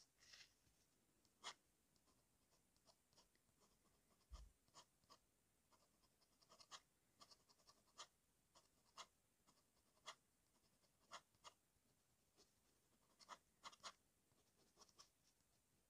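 TWSBI fountain pen nib scratching faintly on paper in short, irregular strokes as ink lines are drawn, with a soft low bump about four seconds in.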